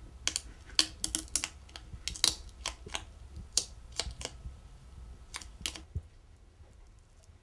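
Fingernails scratching and picking at the label of a plastic squeeze ketchup bottle: an irregular run of sharp little clicks and scrapes that thins out to faint ticks about six seconds in.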